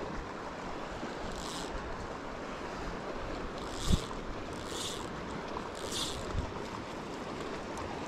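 River water rushing steadily, with wind on the microphone. A few short scratchy sounds come over it, and there is a single thump about four seconds in.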